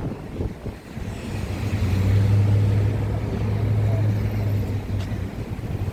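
A motor vehicle's engine giving a steady low hum that swells up about two seconds in, holds, and fades away near the end, over outdoor background noise.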